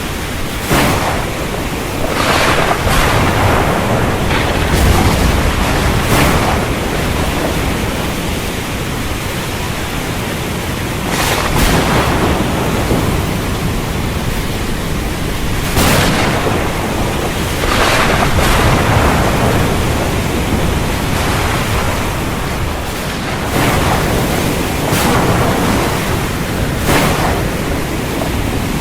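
Storm wind blowing steadily, with stronger gusts that swell and fade every few seconds.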